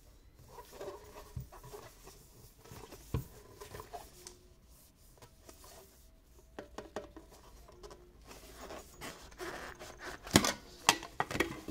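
Gloved hands rubbing and turning a ribbed tin-can-style perfume box, with soft scrapes and scattered light clicks. Near the end comes a cluster of sharp clicks and knocks as the can is worked open.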